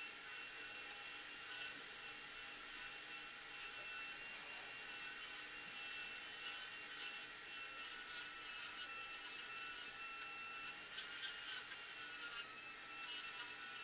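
Dental drill running steadily with a high whine and hiss as it cuts away decay to open a carious molar for a root canal. A few faint clicks come in the second half.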